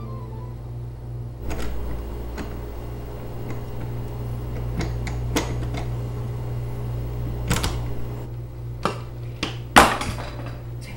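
Scattered sharp metallic clicks and knocks from a door's deadbolt lock being worked, the loudest one about ten seconds in, over a steady low hum.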